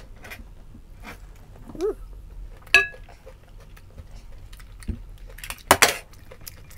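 Chopsticks and wooden skewers clicking and knocking against a ceramic bowl and plate, with a ringing clink about three seconds in and a cluster of louder knocks near the end. A brief vocal sound rises and falls about two seconds in.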